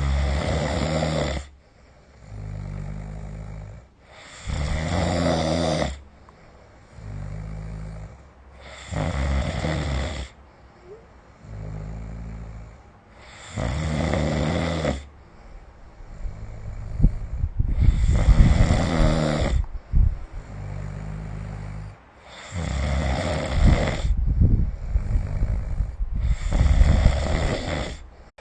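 A sleeping person snoring in a steady rhythm, about once every four and a half seconds: a loud, harsh snore alternates with a quieter, low buzzing one. A little past the middle one snore is longer, louder and rougher than the rest.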